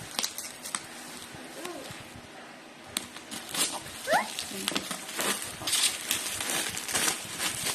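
Packaging rustling and crinkling in short, irregular strokes as a new toy is handled and unwrapped, growing busier a few seconds in. A small child makes a few brief vocal sounds over it.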